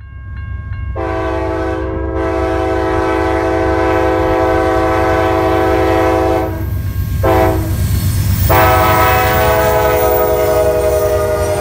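Locomotive air horn: a long blast, a short blast, then another long blast, over the steady low rumble of the passing train.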